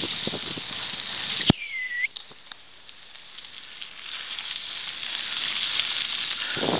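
Crackling riding noise on a wet dirt track: tyres on wet gravel and wind on the microphone. About a second and a half in there is a sharp click and a short squeak, after which the noise drops low, then swells back up toward the end.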